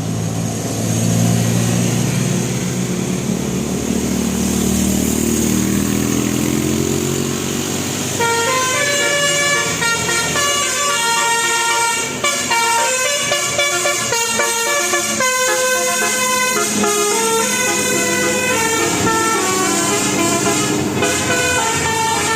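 A bus engine running with its pitch rising, then from about eight seconds in a multi-tone telolet air horn plays a quick melody of changing notes that goes on to the end.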